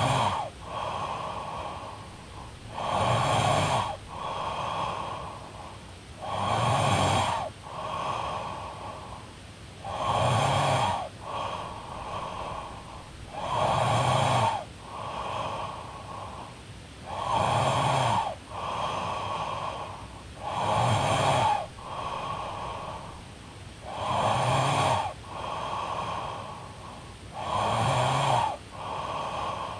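A woman snoring in a regular rhythm. Roughly every three and a half seconds a loud snore of about a second is followed by a softer, longer breath, eight or nine breaths in all.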